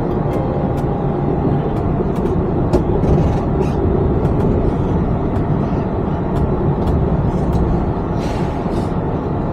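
Inside the cabin of a Yurikamome rubber-tyred automated train running along its elevated guideway: a steady low rumble with scattered light clicks and rattles, and a short hiss near the end.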